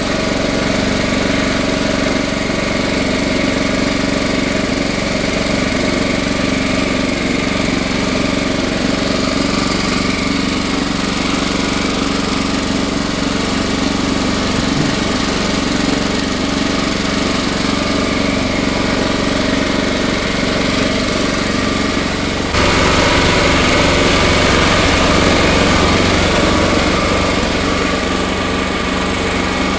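Champion 4000-watt open-frame inverter generator's small engine running steadily. About two-thirds of the way through, the sound changes abruptly and gets a little louder.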